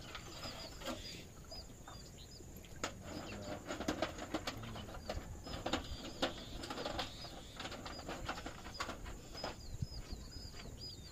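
Birds chirping over and over in short high calls, with scattered faint clicks and knocks of hand tools working on a tractor's rear wheel hub.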